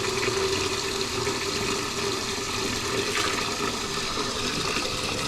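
Water running steadily from a toilet's water supply line into a bucket, a continuous rush with a faint steady tone in it, flushing rust and sediment out of the line before it is connected to a new toilet.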